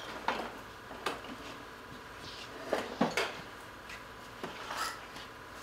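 Tools and metal parts clinking and knocking on a workshop bench as they are handled, a scattered handful of sharp knocks bunched together near the middle, over a faint steady hum.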